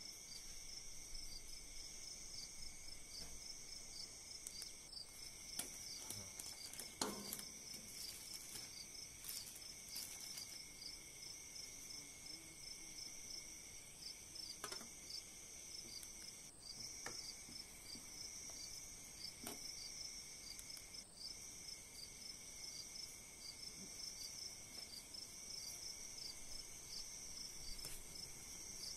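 Insects chirring steadily at several high pitches, one with a fast pulsing chirp, with a few light knocks, the clearest about seven seconds in.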